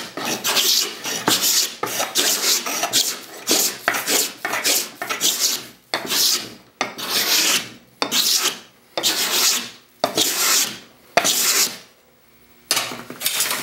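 Stanley No. 80 cabinet scraper pushed across a wooden board in quick repeated strokes, each a short rasping scrape as it takes fine shavings off the surface. After a brief pause near the end comes one last stroke.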